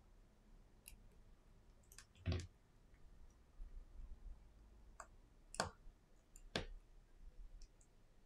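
Scattered small clicks and taps of tools and parts being handled on an iPhone SE 2020 display assembly, about seven in all, three of them louder, the first of those with a dull knock.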